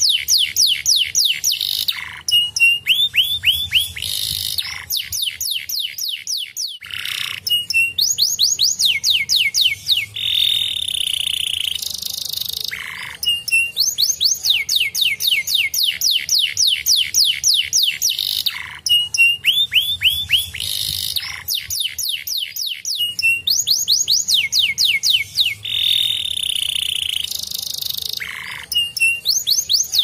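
Domestic canary singing: long fast trills of rapidly repeated notes, broken by short buzzy phrases and brief pauses, with the same run of phrases coming round again about halfway through.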